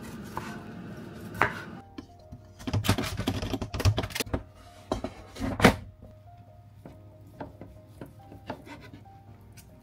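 A knife cutting broccoli on a wooden chopping board, then a loud clatter of broccoli florets tipped from a bowl into a foil-lined air fryer basket, from about three to six seconds in. After that, light taps of a knife slicing a cooked chicken breast on a plastic board.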